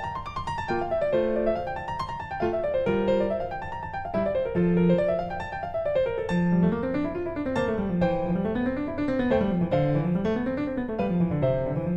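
Background piano music, with notes rolling up and down in quick repeating runs.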